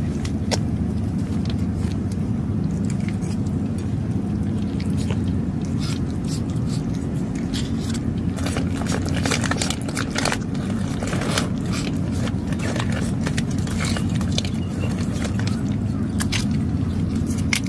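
A cat crunching dry food: irregular sharp crunching clicks, thickest about halfway through and again near the end, over a steady low rumble.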